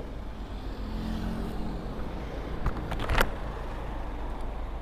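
Motorcycle engine running at low speed with steady low wind rumble on the microphone, and two short sharp clicks about three seconds in.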